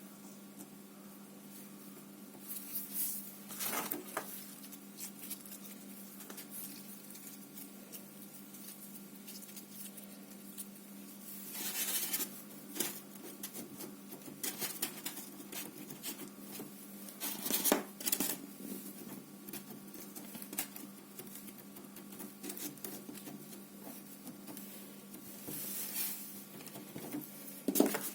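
Pink slime being pressed and worked by hand, giving soft sticky squishes and crackles in scattered bursts, the loudest about two thirds of the way through and again near the end, over a faint steady low hum.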